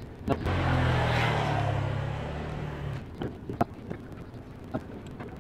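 A motor vehicle's engine and road noise swell suddenly and fade away over about three seconds, like a vehicle going past close by. A few light clicks follow.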